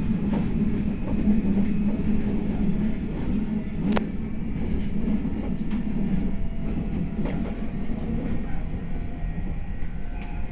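Meitetsu 9500 series electric train running, heard from inside the front car: a steady rumble of wheels on rail, with a few sharp clicks, the clearest about four seconds in.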